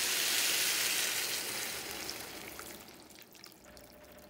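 Water poured into a hot pan of sautéed vegetables: a loud sizzle that dies away over the second half into faint crackles.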